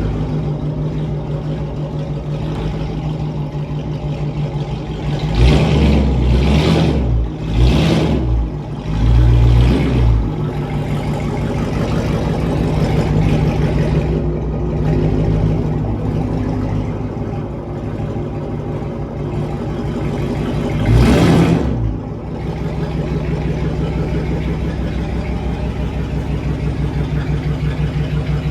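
Car engine idling steadily, revved briefly several times about five to ten seconds in and once more a little after twenty seconds.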